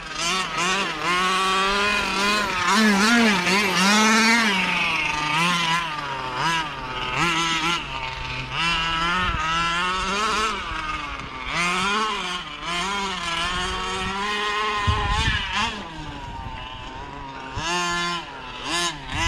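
Small two-stroke petrol engine of a 1/5-scale RC car revving up and down as the throttle is worked, with a tinny note from its stock exhaust.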